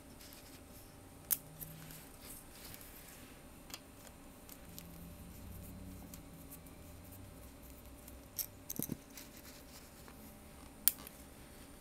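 Screwdriver and fingers working on the metal shroud of a Dell 1704FPVt LCD monitor: a handful of small, sharp metallic clicks and ticks spread out over a faint background, the loudest near the end.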